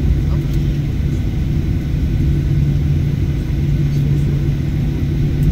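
Steady low rumble of cabin noise inside a Boeing airliner taxiing on the ground, with an unbroken low hum from the engines and aircraft systems.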